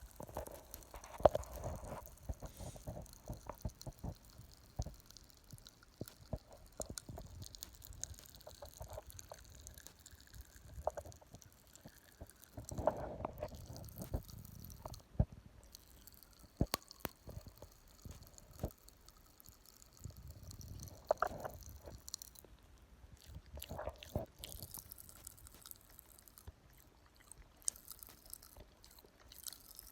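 Popping candy crackling in a mouth: scattered small sharp snaps and clicks, with some chewing now and then.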